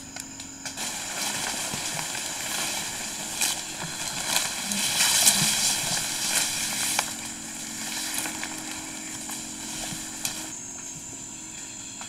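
Leaves rustling with scattered twig snaps, a young gorilla feeding in the foliage: a hissing rustle that builds after the first second and dies away about ten seconds in.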